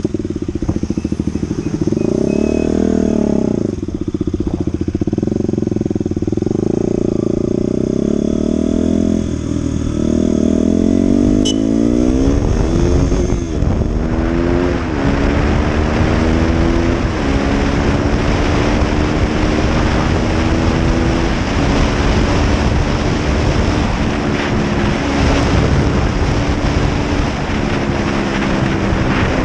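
KTM RC200's single-cylinder four-stroke engine, first ticking over and revved briefly a few times at a standstill. About twelve seconds in it pulls away and climbs through the gears, the pitch rising then dropping at each upshift every few seconds, with wind rush building on the microphone as speed rises.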